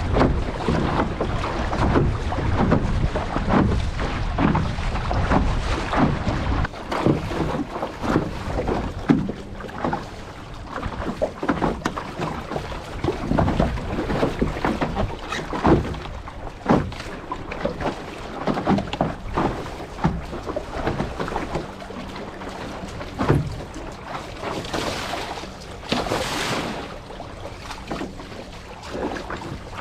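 Water slapping and splashing against the hull of a sailing International Canoe in irregular knocks. Wind buffets the microphone, heavily for the first several seconds. A short rushing hiss comes about 25 seconds in.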